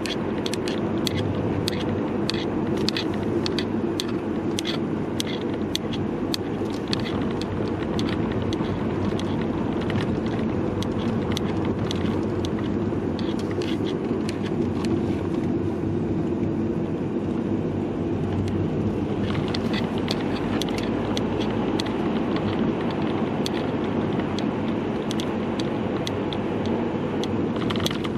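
Steady road and engine noise inside a moving car, with frequent irregular clicks and rattles from the camera's hanging strap knocking against the camera. The clicking thins out for a few seconds midway, then resumes.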